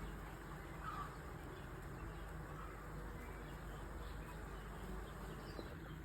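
Steady outdoor background noise with a few faint, brief bird chirps, one about a second in.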